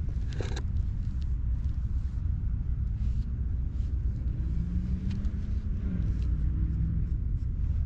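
A steady low rumble, with faint scratchy strokes of a nekojasuri cat grooming file drawn through a cat's long fur, and one sharper scrape about half a second in.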